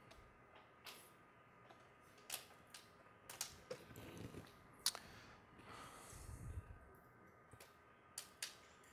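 Irregular, faint clicks and taps of a laptop keyboard, about a dozen spread over quiet room tone, with a couple of soft rustles in the middle.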